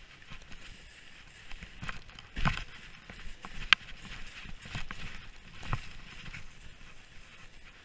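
Skis sliding and scraping over packed, cut-up snow in uneven swishes, with a heavy thump about two and a half seconds in and a sharp click about a second later.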